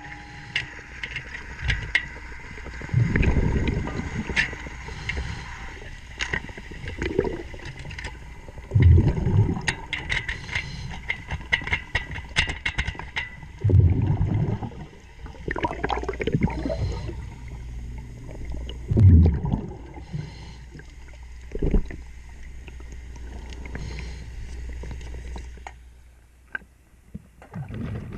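A scuba diver breathing through a regulator underwater, with a rumbling gush of exhaled bubbles about every five seconds. Sharp clicks and knocks from the propeller work sound in between.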